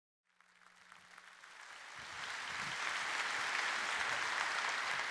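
Congregation applauding, fading in over the first two seconds and then holding steady.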